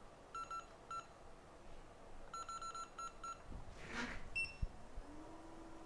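Runs of short, high electronic beeps, three to five in quick succession, from the buttons of a rework station being set. A short hiss comes about four seconds in, and a steady low hum starts near the end.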